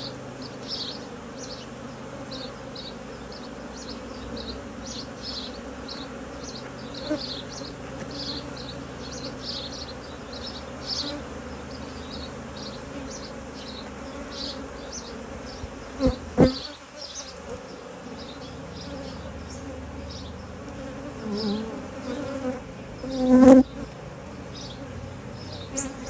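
Honeybees buzzing around an opened hive, a steady hum, with short high chirps scattered throughout. Two brief knocks stand out, one about two-thirds of the way through and a louder one near the end.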